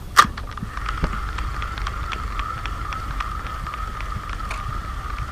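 Spinning reel being cranked steadily to retrieve a lure: a steady whirr with regular ticks about four a second. A sharp click comes about a quarter second in.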